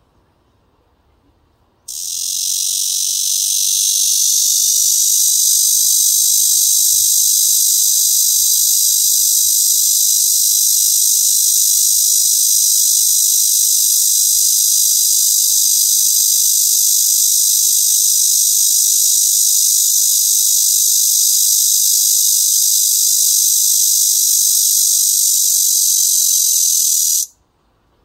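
A cicada singing close by: one loud, steady, high buzz that starts abruptly about two seconds in and cuts off about a second before the end.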